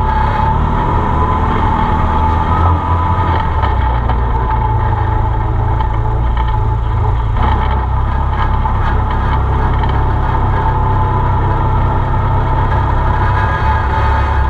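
Arctic Cat Wildcat side-by-side's engine running steadily as it drives along a dirt trail, heard from inside the cab, with a steady whine above the engine note.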